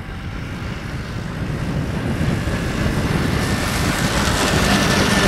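Snowmobile engine running and growing steadily louder, mixed with wind noise on the microphone.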